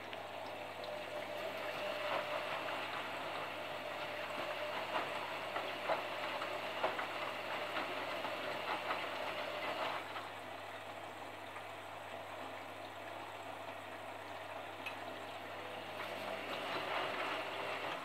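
Front-loading washing machine drum turning in a wash cycle, tumbling wet laundry through water: a steady sloshing hiss over a steady hum, with scattered soft knocks. The drum stops near the end and the sound drops away.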